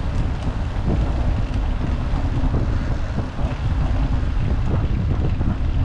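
Steady wind buffeting the microphone of a handlebar-mounted GoPro as a road bicycle rolls along, with the low rumble of the tyres on the trail and a few small knocks from bumps.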